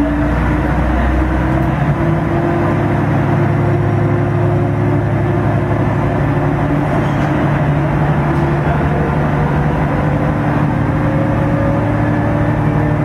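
Diesel railcar's engine running under power, heard from inside the car, its note climbing slowly as the train gathers speed, over a steady rumble of wheels on rail.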